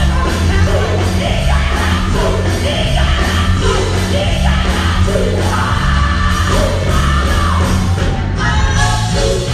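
Gospel group singing live with a full band: heavy bass under shifting lead and backing voices, with shouted vocal lines.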